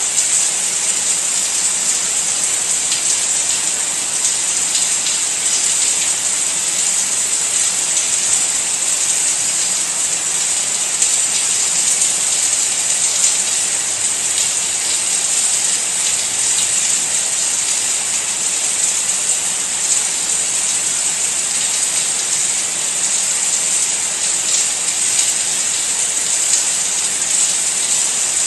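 Steady rain, a dense, even hiss with faint ticks of individual drops, unchanging throughout.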